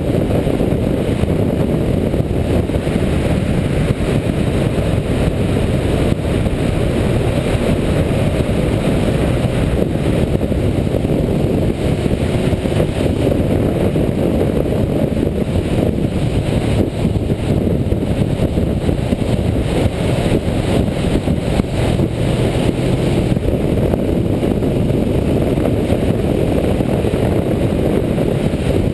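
Suzuki GS500 parallel-twin motorcycle ridden at a steady pace. Engine noise and wind rush over the bike-mounted camera's microphone blend into one steady low noise, with no revving or gear changes.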